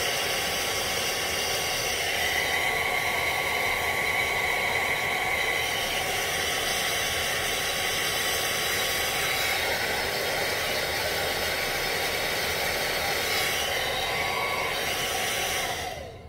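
Handheld hair dryer running steadily, a rushing airflow with a high motor whine, blowing on lace glue to dry it; it is switched off near the end.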